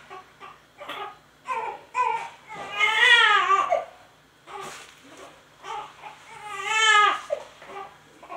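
Newborn baby crying: short fussy cries, then two long wails, one about three seconds in and another about seven seconds in.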